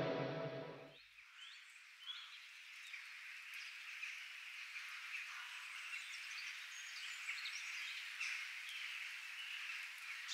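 A distorted electric guitar chord cuts off about a second in. It leaves a faint ambience of many short, high chirping animal calls over a steady hiss, with no low end.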